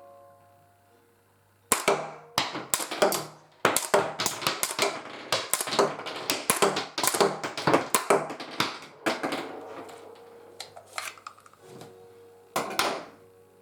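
ELAN model gun with a silencer barrel, worked without 5 mm caps loaded: a long run of sharp mechanical clicks and clacks of the hammer and action, with no firing report. The clicks begin about two seconds in, come thickest in the middle and thin out near the end.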